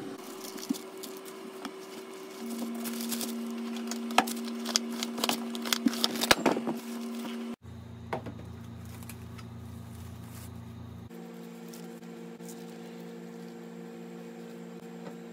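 Rustling and crinkling of paper towel and plastic film being handled around a raw yellowtail fillet, with scattered crackles that thin out about halfway through, over a steady low hum.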